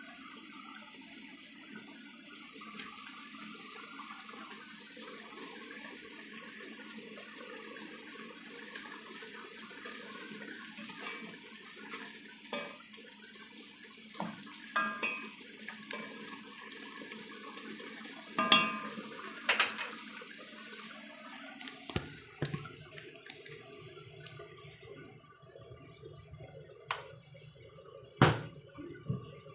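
Chicken simmering in sauce in a pot, a steady bubbling hiss, with a wooden spoon scraping and knocking against the pot as it is stirred. The bubbling drops away about two-thirds of the way through, leaving a few sharp knocks.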